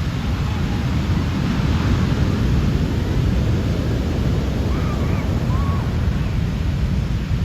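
Large ocean breakers crashing and washing up the beach: a loud, steady surf roar with a deep rumble, with wind buffeting the microphone.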